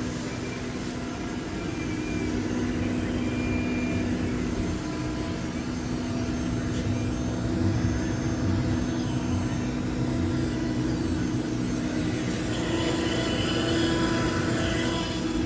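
Dental milling machine running with a steady whir and hum, carrying a couple of steady low tones.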